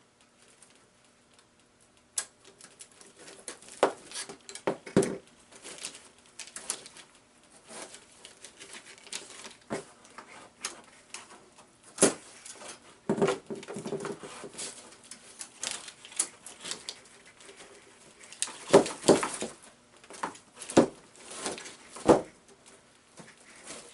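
Irregular clicks, taps and knocks of hands handling and securing a coiled bandsaw blade so its loops don't spring open. The sounds start about two seconds in, with louder clusters of knocks near the middle and again toward the end.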